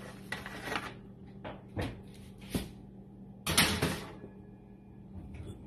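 Electric range's oven door opening and a metal baking sheet going into the oven: scraping and a few short clunks, the loudest clatter about three and a half seconds in, over a steady low hum.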